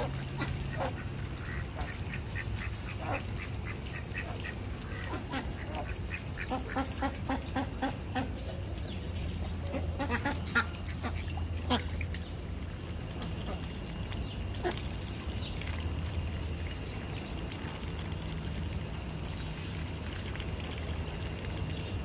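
Domestic ducks quacking: runs of short quacks, busiest in the first half, then a few louder single calls.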